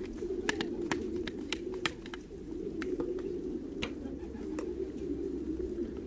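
Racing pigeons cooing without a break in the loft, with a scatter of sharp clicks and taps as plastic jars and a spoon are handled on a metal table.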